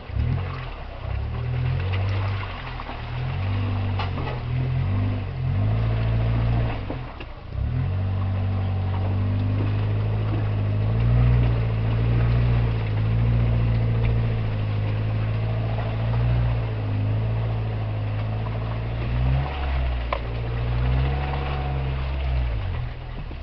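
Suzuki Jimny 4x4 engine running under load at low revs as the vehicle crawls off-road. The revs rise and fall several times, with a brief drop about seven seconds in.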